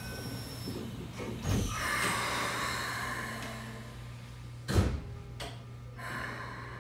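Sliding doors of a Keikyu 1000 series commuter car closing: a knock as they shut about a second and a half in, followed by a hiss, then a sharper, louder knock near five seconds, over the car's steady low hum.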